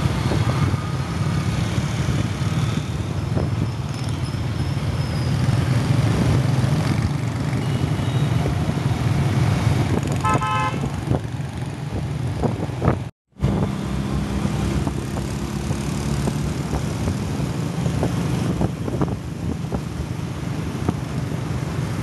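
Motor scooter riding in city traffic: steady engine and road rumble. About halfway through, a vehicle horn beeps in a quick string of short toots. The sound cuts out for an instant a few seconds later.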